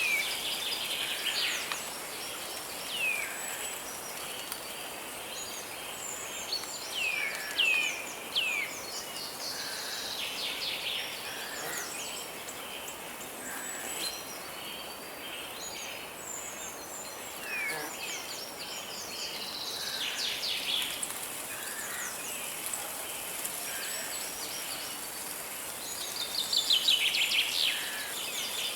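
Several birds calling and singing over a steady hiss of a flowing river: short whistled notes that fall in pitch, and bursts of quick trills. The calls are loudest about seven to nine seconds in and again near the end.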